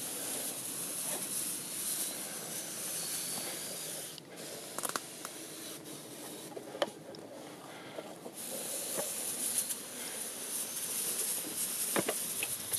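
Garden pressure sprayer wand spraying liquid fertilizer as a fine mist, a steady hiss that stops about four seconds in and starts again about four seconds later. A few short clicks and knocks, the sharpest near the end.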